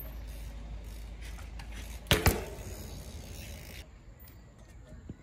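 Two sharp knocks about a quarter second apart, around two seconds in, over a low steady rumble that drops away a little before the end.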